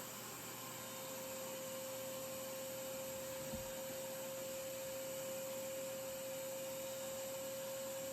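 Revair reverse-air hair dryer running, drawing the hair into its tube by suction: a steady hum-like whine over an even rush of air.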